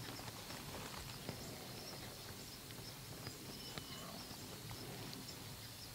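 Quiet outdoor ambience in an open field at dusk: a faint steady background hiss with a few soft clicks and a brief high chirp a little before the 4-second mark.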